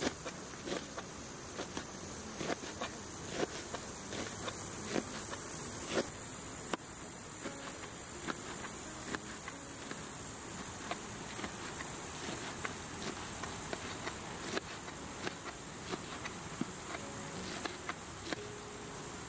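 Insects buzzing and chirring steadily and high, with scattered sharp clicks of a knife chopping leeks on a metal plate.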